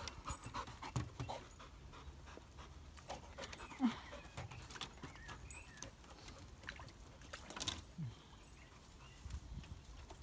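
Dog panting as it trots, with a run of footsteps clicking and knocking on wooden boardwalk planks.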